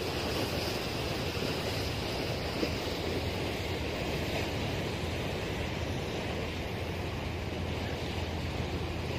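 Sea water rushing and splashing past the hull of a moving boat, over a steady low engine drone, with wind on the microphone.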